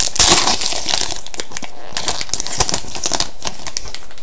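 Wrapper of a 2011-12 Upper Deck SPx hockey card pack being torn open and crinkled by hand. The crackling is dense for the first second and a half, then thins to scattered crinkles.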